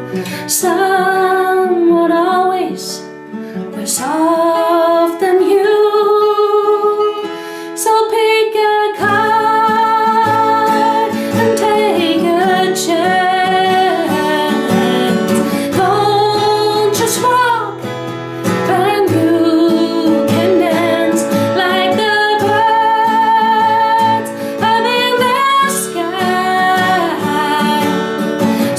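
A woman singing with vibrato over her own strummed acoustic guitar.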